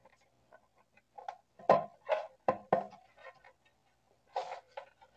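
Plastic case of a Safe Guard voltage protector being pulled apart by hand: a run of sharp clicks and creaks as its clips give way, mostly in the middle and again near the end.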